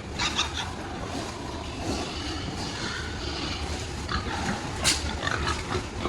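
Pigs grunting in a crowded pig barn, over a steady low hum, with a sharp knock about five seconds in.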